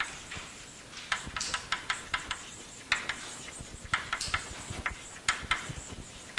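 Chalk writing on a blackboard: an irregular run of quick taps and short scratches, a few each second, as a phrase is written out.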